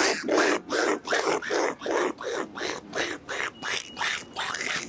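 A man making quick, breathy, animal-like huffs and panting sounds, about three a second.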